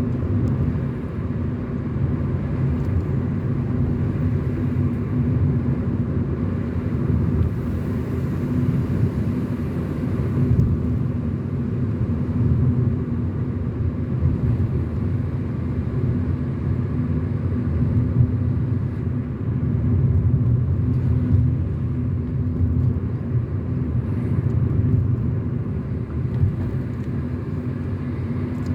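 A car driving at a steady pace: continuous low engine and road rumble with a steady hum.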